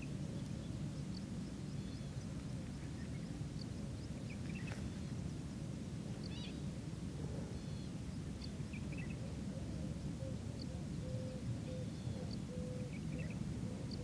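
Wetland ambience: a steady low background rumble with scattered short, high chirps from birds calling. In the second half a faint short note repeats over and over.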